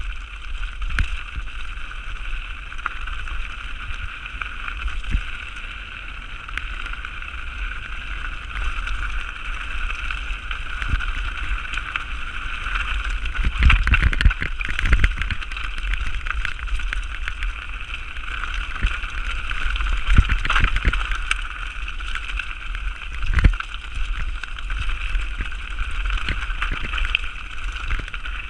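Mountain bike descending a rough, rocky trail: steady wind rumble on the action camera's microphone with the bike rattling and its tyres running over rough ground. There are sharper knocks from bumps, heaviest about halfway through and again near the end.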